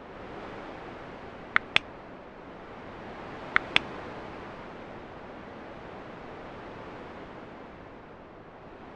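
A steady hiss of room noise, broken twice by a quick pair of sharp clicks, about one and a half seconds in and again near four seconds.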